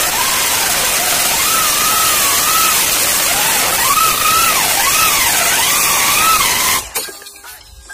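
Corded drill driving a hole saw through a car's sheet-metal hood: a loud, harsh cutting noise with a whine that wavers up and down as the saw bites and bogs, stopping suddenly about seven seconds in.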